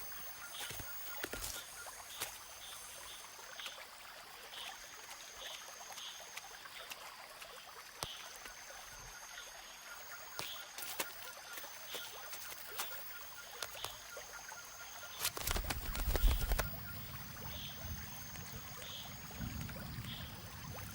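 Rainforest ambience of picathartes nest-building: many small wet clicks and taps of mud being worked, over repeated high, thin whining calls. A louder low rustling flutter comes about two-thirds of the way through.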